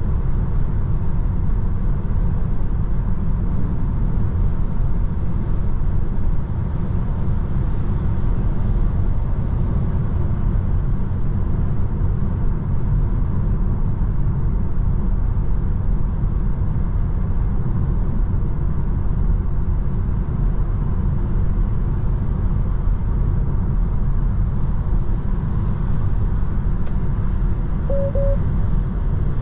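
Steady road and tyre rumble inside the cabin of a Tesla Model 3 Long Range Dual Motor cruising at motorway speed, with no engine note since the car is electric. A brief two-note beep sounds near the end.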